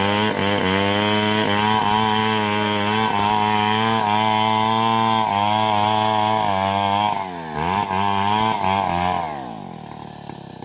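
Two-stroke chainsaw running at high revs. A little past halfway its pitch dips and climbs back, then near the end it drops away as the throttle is released.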